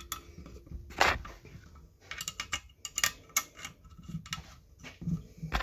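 Metal parts of a snowmobile secondary clutch clicking and clinking as the spring cover is turned and seated by hand. One sharp click about a second in is the loudest, then a quick run of small clicks from about two to three and a half seconds in.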